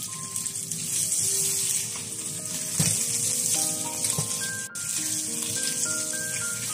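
Small yellow catfish sizzling steadily as they fry in oil in a stainless-steel wok, with one short knock a little under three seconds in as the spatula moves them. Background music plays over the frying.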